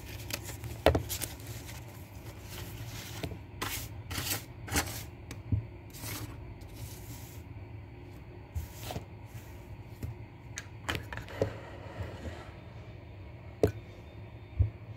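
Banknotes rustling and crinkling as they are handled and spread out on a table, in irregular short bursts over a steady low hum.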